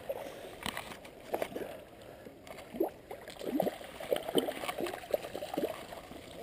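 A hooked trout splashing and thrashing at the surface close to the bank, with irregular plops, sloshing and gurgling of the water as it is played in.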